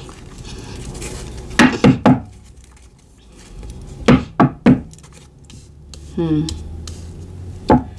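Tarot cards being handled on a table, giving sharp clicks and knocks in quick groups of three about two seconds in and again about four seconds in, with one more knock near the end.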